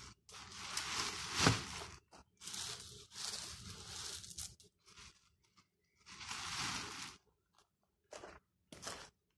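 Weeds and grass being pulled up by hand: irregular bursts of rustling and tearing as the clumps and roots come out of the ground, with one sharper crack about a second and a half in.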